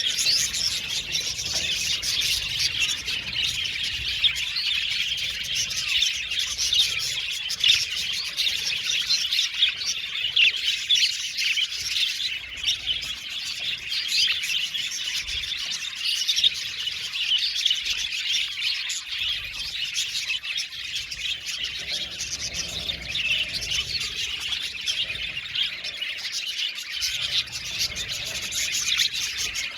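A flock of budgerigars chattering and chirping together: a dense, unbroken stream of short, quick chirps and warbles from many birds at once.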